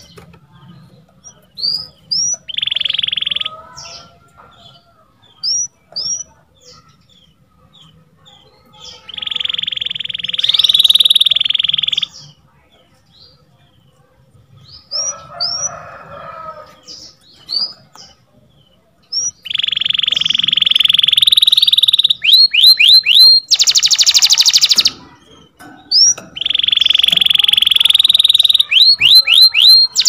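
Domestic canary singing: short rising chirps broken by long buzzing rolls, the phrases growing louder and denser in the second half, with quick runs of rising whistles and a loud harsh trill.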